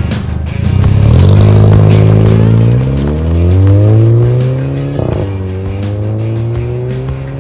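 VW Eos fitted with a newly made, sportier exhaust, accelerating hard as it drives away. Its engine note climbs steadily in pitch from about a second in, breaks at a gear change about five seconds in, then rises again more slowly.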